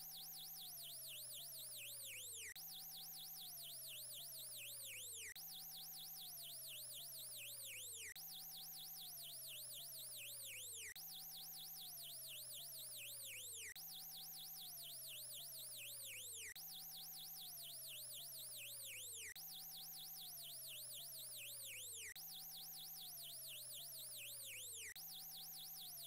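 Electronic emergency-alert siren of the kind used for Vietnamese alerts: a high-pitched wail warbling rapidly up and down over lower tones that hold and then slide down. The cycle repeats about every two and three-quarter seconds.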